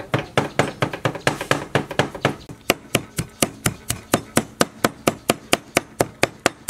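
Knife chopping food rapidly on a wooden cutting board, a steady rhythm of about five strokes a second.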